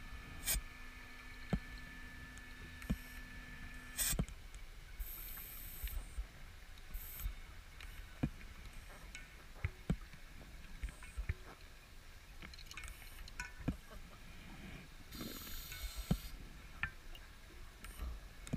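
Underwater sound through a camera housing: the steady whine of a dive scooter's electric motor that cuts off about four seconds in, then scattered sharp clicks and knocks of dive gear, with two short bursts of bubble hiss.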